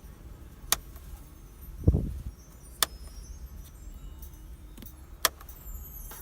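Three sharp single clicks of car cabin controls being operated for the Subaru Pleo's auto air-conditioner self-diagnosis, with a dull low thump about two seconds in.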